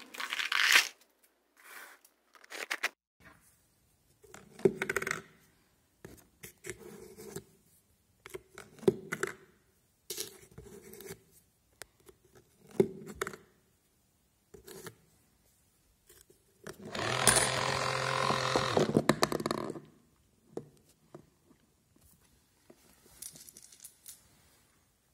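Coins pushed into the slot of a homemade cardboard gum machine, knocking and clicking dully inside the box every second or two. About two-thirds through, the machine's small electric motor runs steadily for about three seconds.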